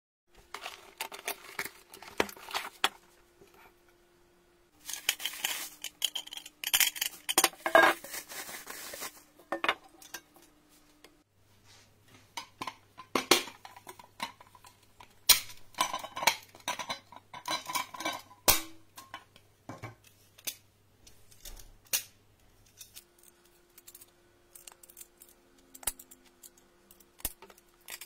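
Non-stick springform cake pans handled by hand: irregular metallic clinks, knocks and scrapes as the pan rings and bases touch one another, with a few seconds of denser scraping noise about five seconds in.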